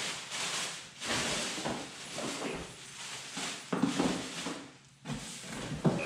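Plastic packaging wrap crinkling and rustling in irregular surges as plastic-wrapped vacuum parts are handled and pulled out of a cardboard box, with a couple of light knocks, one near four seconds and one near the end.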